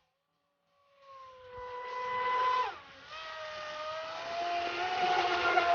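ProBoat SonicWake 36-inch RC boat's brushless motor whining at speed over a hiss, coming in about a second in. About two and a half seconds in the whine drops sharply in pitch, then climbs back up and holds, getting louder.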